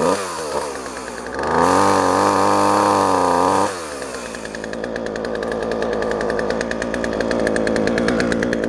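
Poulan two-stroke chainsaw running at high revs and cutting through a rotten log. It is loudest for about two seconds early on, then drops back and builds again toward the end.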